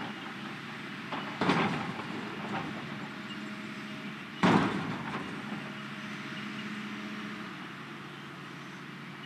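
Hitachi excavator's diesel engine running steadily, with two loud bangs about three seconds apart as its steel bucket strikes the shipping container, each one ringing briefly.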